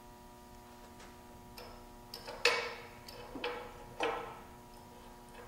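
Small hardware being handled on a wooden tabletop: a few light clicks, then three sharper knocks about a second apart in the second half, the first of them the loudest.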